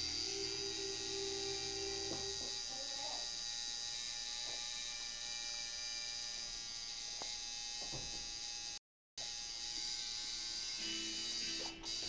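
Electric tattoo machine buzzing steadily while inking a chest tattoo. The sound drops out for a moment about nine seconds in.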